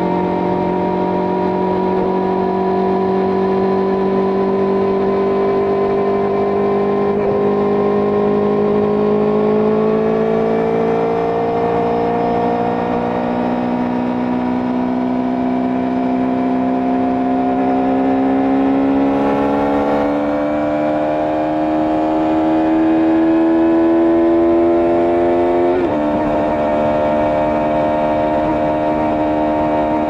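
Benelli TNT600i's inline-four engine pulling steadily in gear, its note rising slowly as the bike gathers speed. About four seconds before the end the pitch drops suddenly with an upshift and then holds steady.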